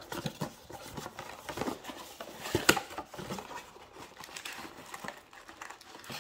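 Cardboard of a small printed box being handled and pried open by hand: rubbing and scraping of the flaps with scattered light clicks, and one sharper snap about two and a half seconds in.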